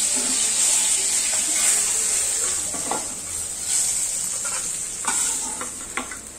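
Small fish sizzling steadily as they shallow-fry in hot oil in a kadhai, with a flat metal spatula scraping and tapping against the pan as the fish are turned and lifted out, the taps mostly in the second half.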